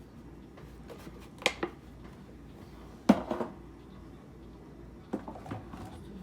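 Kitchen clatter of spice containers and a dish being handled and set down while noodles are seasoned: three clusters of sharp knocks, the loudest about three seconds in.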